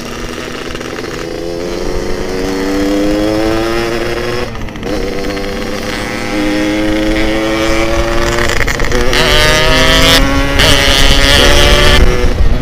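Yamaha RX-King two-stroke single-cylinder engine pulling hard under way, its pitch climbing through the gears with an upshift about four and a half seconds in and more shifts near the end, over wind rush on the microphone.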